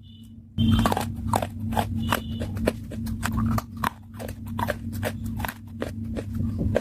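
Close-miked chewing: irregular sharp crunches, about three or four a second, as a hard crumbly mouthful is bitten and ground. A steady low hum runs underneath from about half a second in.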